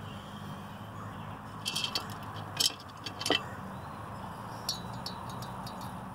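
A handful of light metallic clinks and taps as small parts and screws are handled on a workbench, spread over a few seconds, over a steady low hum.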